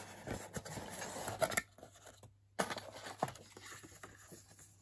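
Cardboard mailer box lid being lifted open and a printed card taken out, with cardboard and paper rustling and scraping and a few light taps. The sound cuts out briefly about halfway through.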